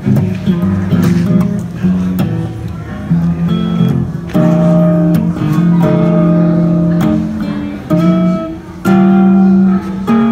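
Electric guitar played through a Blackstar combo amplifier: a melodic line of picked single notes, some held and left ringing for about a second.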